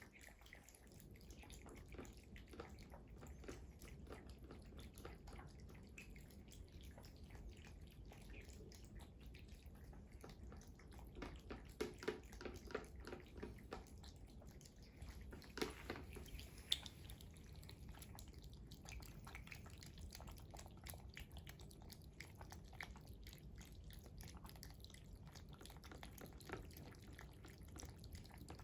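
Faint clicking and chewing of domestic cats eating, with a few louder clicks midway.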